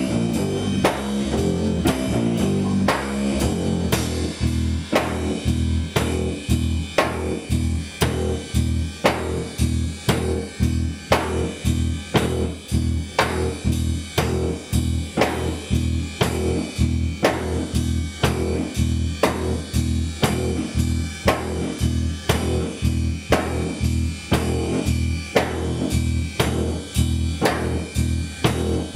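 Rock instrumental with drum kit, guitar and bass guitar playing a riff over a steady beat; about four seconds in, the bass settles into a repeating low pattern.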